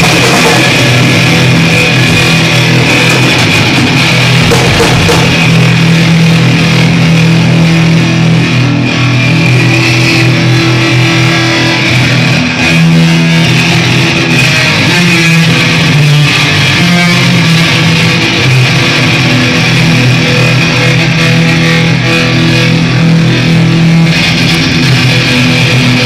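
Hardcore punk band sound-checking live on amplified electric guitar and bass, loud and continuous, with held chords that change every second or two.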